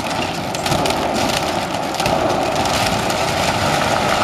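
Wooden silo creaking and crackling as it leans over toward collapse, with many small cracks of splitting wood over the steady running of a heavy machine's engine. The noise gets a little louder about two seconds in.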